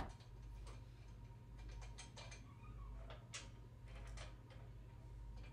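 Small metal clicks and ticks of bolts, washers and nuts being handled and threaded by hand onto a steel mower-deck bracket. There is one sharp click at the start and then scattered lighter ones.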